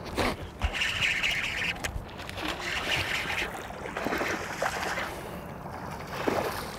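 Bass splashing at the surface: a strike on a topwater frog, then the hooked fish thrashing and jumping near the boat in a string of uneven splashes.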